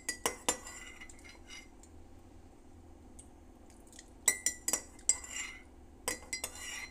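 A spoon clinking against a ceramic mug as it scoops, in three quick clusters of sharp clinks, each with a short ring.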